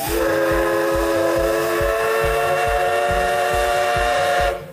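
Steam whistle of the C58 363 steam locomotive blowing one long blast of about four and a half seconds: a loud, steady chord that rises slightly in pitch as it opens and cuts off sharply.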